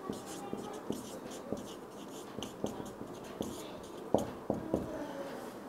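Marker pen writing on a whiteboard: faint scratchy strokes with scattered light ticks as letters are formed.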